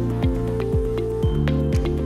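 Upbeat corporate-style background music with a steady kick drum beat about twice a second under sustained synth notes.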